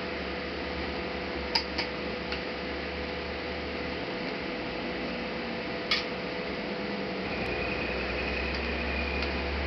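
A few sharp clicks from laptop parts and tools being handled during disassembly, three close together and one more a few seconds later, over a steady hiss and low hum.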